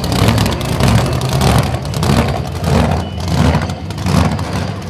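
Supercharged Ford Hemi engine of a drag altered running loud and uneven at low speed, its level swelling and dropping about once or twice a second.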